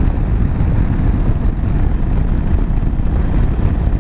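Heavy wind rush on the microphone of a KTM 790 Adventure motorcycle being ridden at road speed, with its 799 cc LC8c parallel-twin engine running underneath. It is a steady, loud, low rumble with no sudden events.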